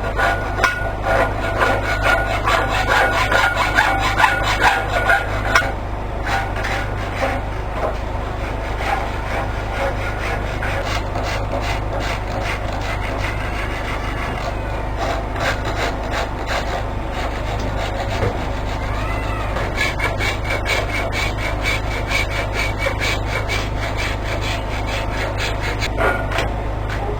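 A hand tool rasping against wood in quick, continuous strokes, louder for the first six seconds, over a steady low hum.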